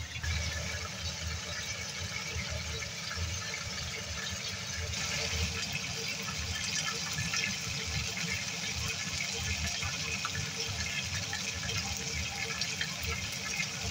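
Chicken frying in oil in a pan over medium-high heat: a steady sizzle with fine crackling, growing a little brighter about five seconds in.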